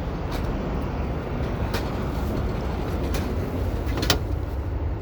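Steady low rumble of city street traffic, with a few faint clicks.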